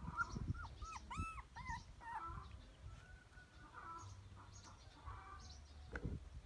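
A puppy whimpering: a quick run of short, high whines, each rising and falling, about a second in, with fainter short calls after.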